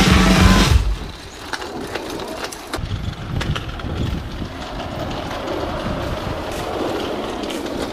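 Music breaks off about a second in. After that, a mountain bike rattles and knocks as it rolls over a rough surface, with many small irregular clicks.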